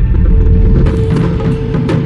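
Electronic jingle music: a deep low rumble under a held mid tone, with sharp percussive clicks, a cluster of them about a second in and a single strong one near the end.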